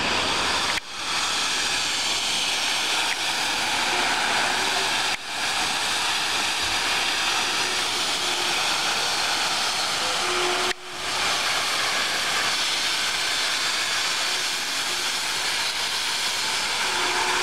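WP-class steam locomotive 'Akbar' hissing steadily as it vents steam, the hiss dipping sharply three times and coming straight back.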